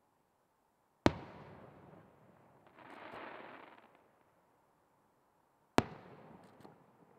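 Aerial firework shells bursting: two sharp bangs about five seconds apart, each followed by a trailing rumble as it dies away, with a second-long swell of hissing noise between them.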